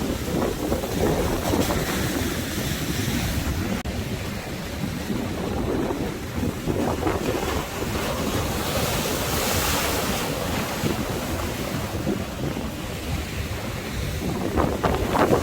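Sea waves washing in, with a swell of spray-like hiss about nine seconds in, under strong wind buffeting the microphone.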